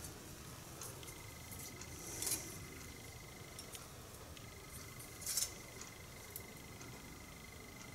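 Small hand tools and metal parts being handled on a workbench: faint clinks and light knocks, the two clearest about two and five seconds in, over a thin steady high tone.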